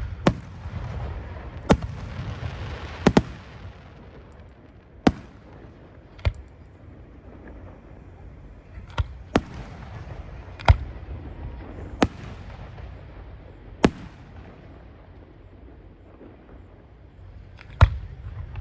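Aerial fireworks display: about a dozen sharp bangs at irregular intervals, one to three seconds apart, some followed by a short hiss.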